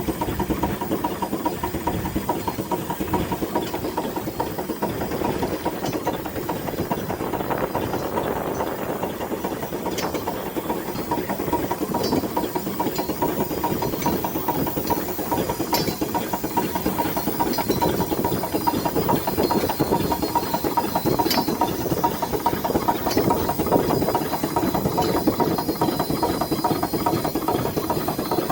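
Steam engine running steadily, with a continuous hiss of steam and a few faint clicks.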